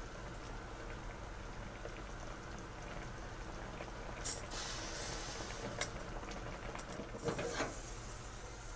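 Broth with meat and onion simmering in a shallow pan as beaten egg is poured in, with a steady low bubbling. There is a brief hiss about halfway through and a few light knocks and clinks near the end.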